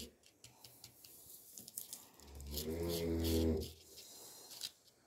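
Faint ticks of fingertips pressing coloured sand onto a sand-art sheet, with one low hum-like voice sound lasting about a second and a half, a little past two seconds in.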